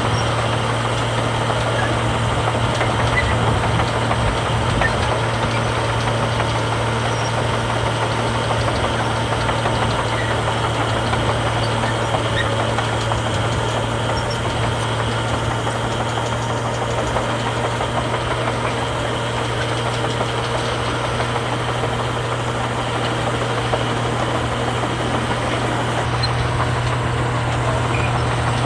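Heavy diesel engine of earthmoving machinery running at a steady speed, with no clear clanks or revving.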